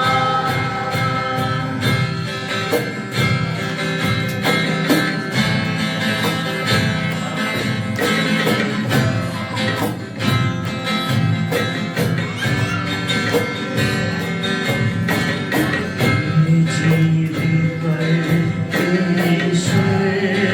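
Live worship band playing an instrumental passage between sung lines: guitar over a steady beat of evenly spaced percussion hits.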